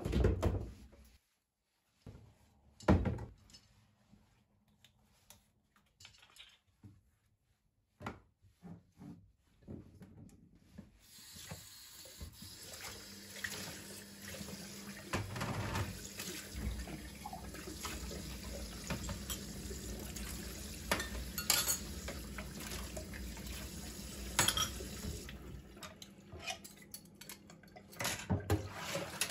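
A kitchen tap runs into a sink for about fifteen seconds while dishes and cutlery clink against each other. A few sharp knocks come before the water starts, and more clinks after it stops.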